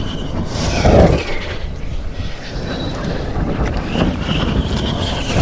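Strong wind buffeting the microphone, with the rushing whoosh of a dynamic-soaring RC glider passing at high speed, loudest about a second in and again at the end.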